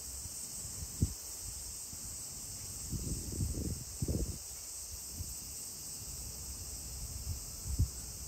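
Steady high-pitched chorus of insects chirring, with irregular low rumbles of wind buffeting the microphone.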